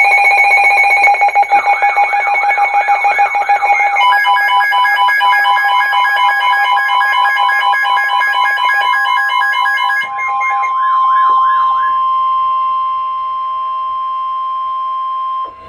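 Emergency alert alarm tones for a severe thunderstorm warning: several alarms overlap, with warbling siren-like tones, rapid pulsing beeps and steady tones. About ten seconds in most of them stop, leaving one steady tone that cuts off near the end.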